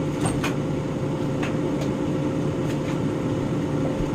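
Microwave oven running with a steady hum, with a few faint clicks over it.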